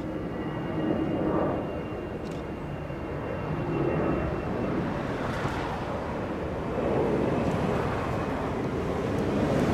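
Distant jet engines of an Airbus A330-300 moving on the runway, a steady rumble that swells in waves and is loudest in the second half.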